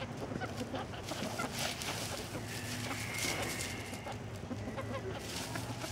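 Chickens clucking softly while scratching and pecking through dry leaf litter, with the dry leaves rustling and crackling in many short ticks.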